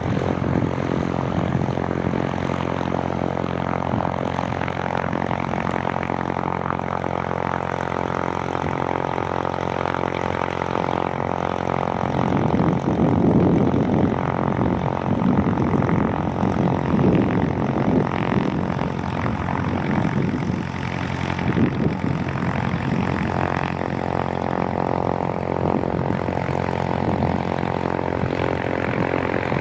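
Propeller aircraft engine running at a steady pitch, with a louder, throbbing stretch from about twelve to twenty-one seconds in.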